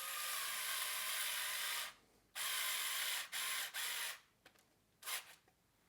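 A screw being driven into the plastic enclosure of a light therapy lamp with a screwdriver: gritty ratcheting turns in several runs, one long run of about two seconds, then three shorter ones and a brief last one near the end as the screw seats.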